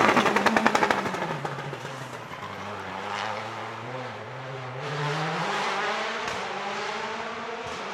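Rally car engine passing at speed, loudest at the start with a rapid pulsing. The engine note falls over the next two seconds, holds low, then climbs again about five seconds in as the car accelerates away.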